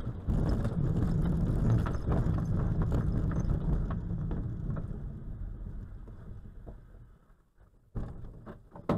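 Grob G102 glider rolling on its main wheel over a grass airfield after landing: a rumbling, rattling ground roll through the fuselage that dies away as the glider slows to a stop. A knock about a second before the end and a sharp click near the end.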